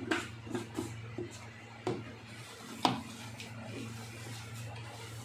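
Raw chicken mince being kneaded by hand in a steel bowl, with a few light knocks and clicks from the bowl and containers on the counter, the sharpest about three seconds in, over a steady low hum.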